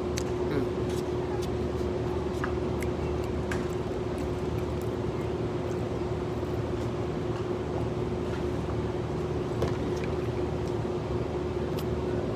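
Steady low hum and rumble with one constant tone, scattered with small clicks and taps of eating from a carryout container.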